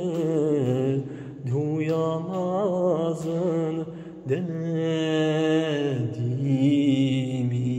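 A voice singing a wordless, ornamented Turkish folk melody over a steady low drone, closing the song.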